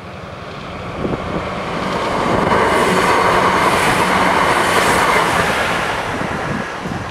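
Passenger train passing over a level crossing: the rush of wheels on rail swells over a couple of seconds, holds loud for about three seconds as the coaches go by, then fades away.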